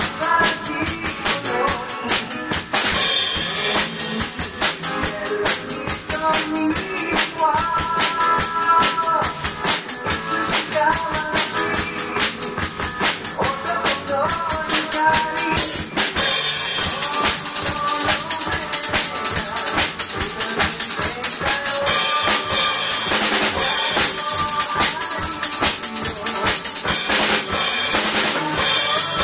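Acoustic drum kit played in a steady, driving beat (bass drum, snare and cymbals) over a recorded pop-rock backing track with a melody. The cymbals grow brighter and busier about halfway through.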